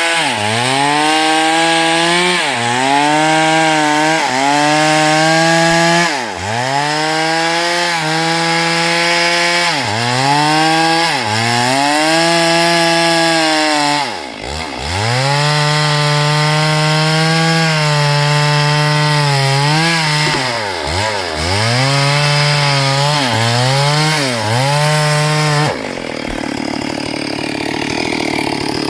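STIHL MS382 two-stroke chainsaw cutting hardwood, its engine note dipping sharply and recovering every couple of seconds as the chain bites and the throttle is worked. In the last few seconds the engine note drops away and the sound turns quieter and more even.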